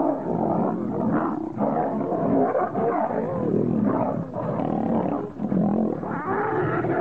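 Two male lions fighting, roaring at each other almost without a break.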